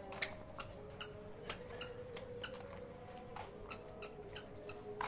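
Footsteps on a brick-paved path: a short sharp click with each step, about two a second, over a faint steady tone.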